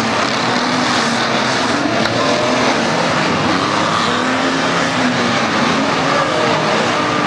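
Engines of a pack of unlimited banger racing cars running and revving together on track, a dense, steady engine noise with pitches rising and falling.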